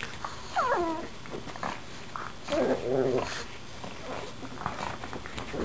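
Two pugs play-fighting over a plush toy: a short falling whine about half a second in, a wavering pitched growl around the middle, and light scuffling clicks.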